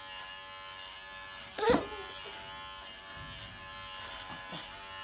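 Electric hair clippers running with a steady buzz as they cut a toddler's hair, with one brief loud sound about a second and a half in.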